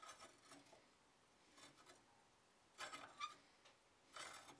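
Faint short scrapes and rubs of steel on steel as a handheld bending fork works a flat bar into a scroll against a bending fork clamped in a vise, a few scrapes in the second half.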